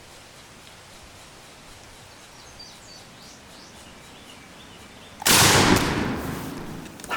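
A single shotgun shot about five seconds in, loud and sudden, its echo rolling away over about two seconds. Before it, quiet outdoor air with faint bird chirps.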